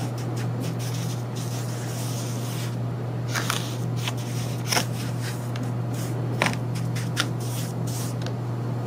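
A spoon scraping and stirring through waterlogged sand in a plastic tray, with about four sharp clicks of the spoon on the tray in the second half, over a steady low hum.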